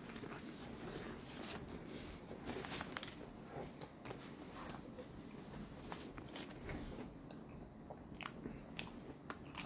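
A person biting into and chewing a breaded fried chicken sandwich, with irregular small crunches and clicks.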